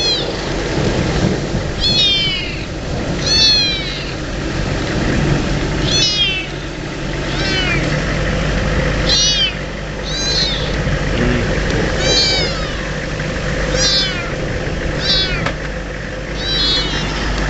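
A small kitten meowing over and over, about eleven short high-pitched cries that each slide down in pitch, one every second or two, over a steady low rumble and hum.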